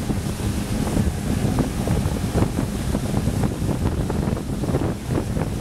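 Wind buffeting the microphone aboard a pontoon boat under way, over the rush of water past the hull.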